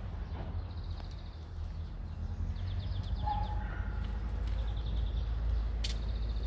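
Birds chirping in short rapid trills, several times, over a steady low rumble of outdoor background noise, with a single sharp click near the end.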